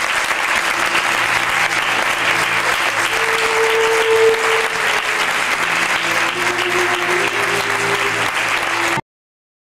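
Audience applauding, with quiet music playing underneath; the sound cuts off abruptly near the end.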